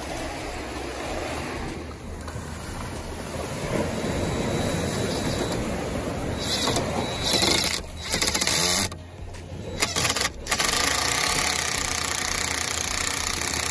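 Cordless impact driver running under load, driving a long screw into a wooden beam. It runs in spells with two short stops about two-thirds of the way through, then runs steadily again until just before the end.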